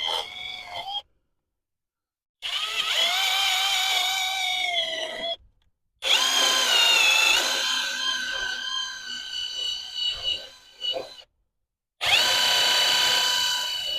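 Handheld power tool motor running with a steady whine that wavers slightly in pitch, in three runs of three to five seconds each. Each run is cut off abruptly by a short gap of dead silence.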